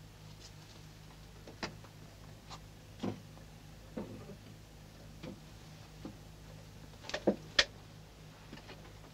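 Scattered soft clicks and knocks of a door handle and latch being worked slowly, ending in two sharper clicks about seven seconds in, over a steady low hum.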